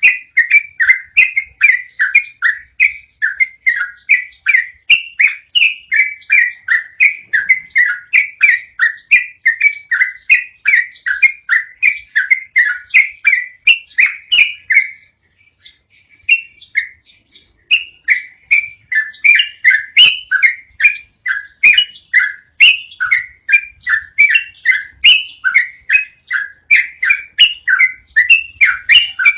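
Yellow-vented bulbul (trucukan) singing a long rolling song: a rapid string of short, chirpy whistled notes, about three a second, broken by a brief pause about halfway through.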